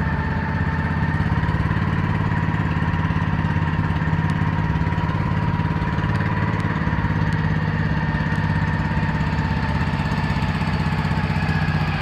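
A small boat engine running steadily at an even speed, with a constant whine above the engine drone.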